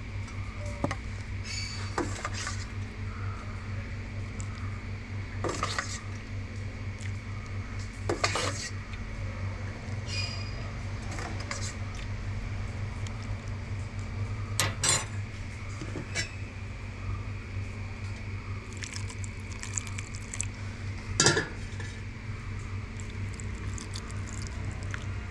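Stainless steel bowls and a metal spoon clinking now and then as puppy kibble is dished out, the loudest clink about 21 seconds in, over a steady low hum.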